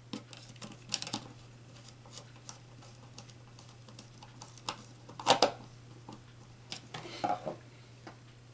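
Scattered small clicks and knocks of hand work at a contactor: a screwdriver at a terminal screw, wires handled and plastic parts and the screwdriver set down on a wooden bench. The loudest knock comes about five seconds in and a short cluster about seven seconds in, over a faint steady low hum.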